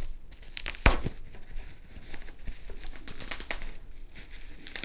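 Pink bubble-wrap packing bag crinkling and crackling as it is handled and opened by hand, with irregular crackles and a sharper one about a second in.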